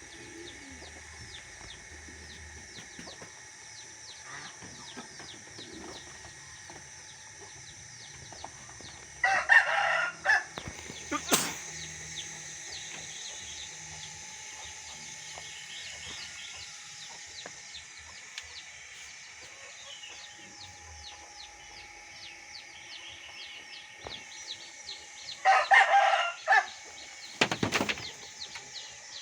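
A rooster crows twice, each crow about a second long, with a sharp knock shortly after each, over continuous faint chirping of small birds.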